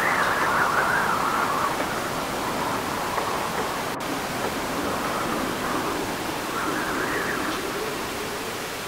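After-rain city ambience: a steady wash of noise with a wavering rise-and-fall of pitch near the start and again around seven seconds in.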